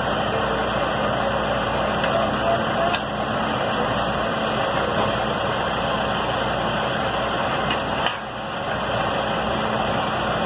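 Heavy vehicle engine running steadily with a constant low hum, mixed with outdoor background noise and faint voices.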